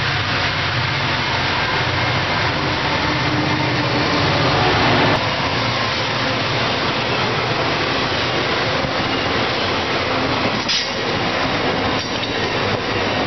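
Diesel freight locomotive FQ04 running as it approaches and passes close by, loudest about five seconds in, where the sound changes abruptly. Then the freight wagons roll past with a steady noise of wheels on rail.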